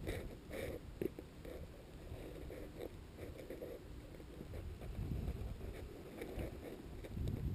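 Wind rumbling on the microphone, with a few faint short sounds, mostly in the first second.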